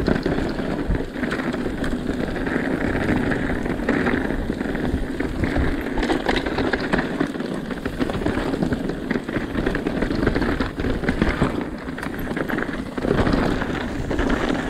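Mountain bike rolling down a rocky dirt trail: tyres crunching over dirt and stones, with frequent knocks and rattles from the bike over rocks, over a steady rush of noise.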